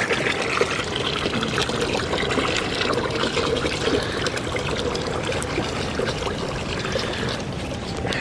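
Water pouring steadily into a farm animal's water container, refilling it after the old water froze.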